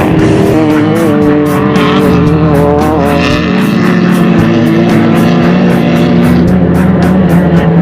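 Off-road race vehicles running their engines at high revs, mixed with background music that has a steady beat.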